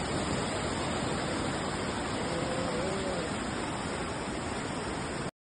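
Fast-flowing floodwater rushing as a steady, dense noise, with a faint wavering tone briefly in the middle; it cuts off suddenly near the end.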